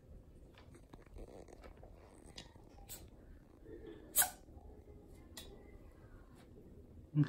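A long-haired cat moving about on a wooden floor: small taps and rustles, one sharp, short hissing burst about four seconds in, and a brief low sound near the end.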